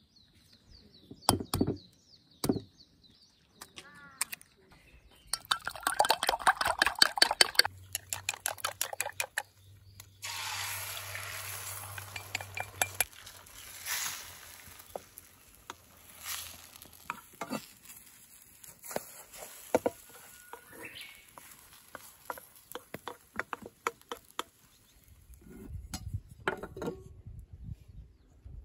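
Eggs beaten fast in a bowl, a rapid clatter of clicks for a few seconds. Then a sizzle as they go into a hot frying pan, and a spoon stirring and scraping them in the pan, with scattered clinks. Near the end, a few dull knocks.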